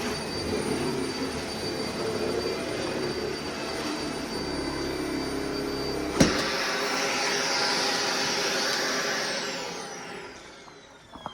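Vacuum cleaner running with a steady whirring hiss and a thin high tone, with a sharp knock about six seconds in. Near the end the motor winds down with a falling whine as the vacuum is switched off.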